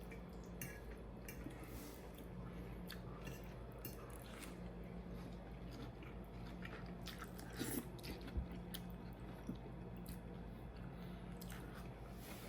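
Faint eating sounds: chewing and biting, with scattered small clicks and smacks over a faint steady low hum.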